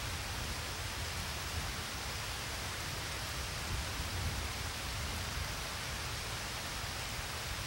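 Steady rain-like hiss with a low rumble underneath, even and unchanging throughout, with no distinct drops, voices or music.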